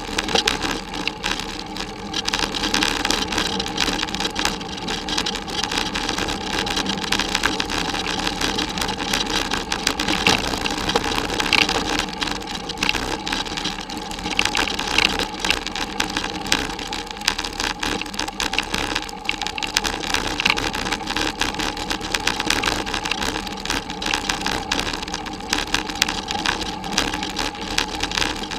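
A bicycle rattling and rumbling over a bumpy dirt forest track, heard through the bike-mounted camera, with a steady hum underneath.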